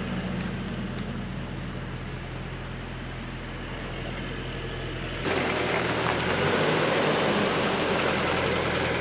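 Motor vehicle running steadily on the road, a constant low engine drone. About five seconds in it cuts abruptly to a louder, hissier stretch of road and engine noise.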